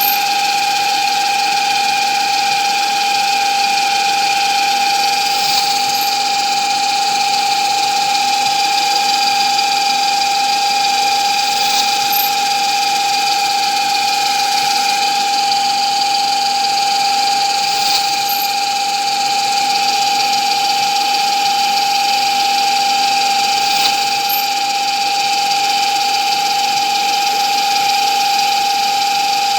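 An electric power-tool motor running steadily at constant speed, with a strong even whine and a faint tick about every six seconds.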